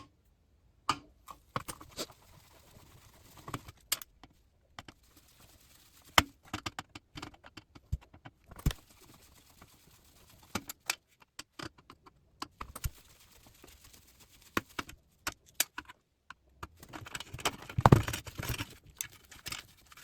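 Screws being taken out of a monitor's circuit boards and steel frame: scattered small metallic clicks and clinks, with a denser, louder clatter of parts being handled about three seconds before the end.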